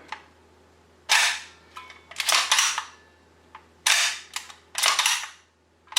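Bolt of a Northeast Airsoft MP2A1 Uzi gas blowback airsoft SMG being pulled back by hand and released by the trigger, slamming forward with sharp metallic clacks, about five in all. It is worked dry without firing, and the bolt carrier is light.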